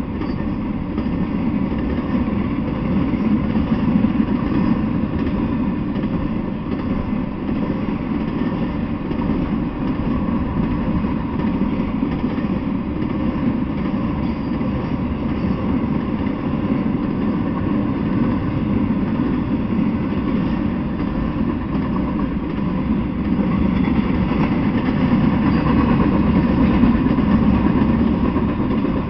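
Intermodal freight train, trailers and containers on flatcars, rolling past with a steady, continuous rumble of wheels on rail, picked up through a trail camera's small microphone.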